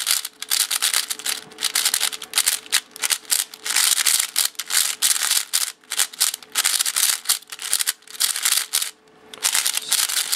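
A MoYu Weisu 4x4 speedcube being turned fast by hand: a rapid, continuous run of plastic clicks and scraping as the layers spin, broken by a short pause about nine seconds in.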